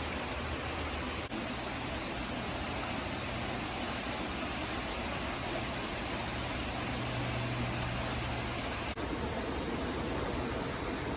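Steady rush of a waterfall, an even hiss of falling water, broken by two momentary dropouts.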